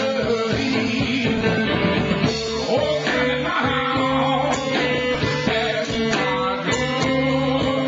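Live blues-rock band playing at a steady loud level: electric guitar over a drum kit.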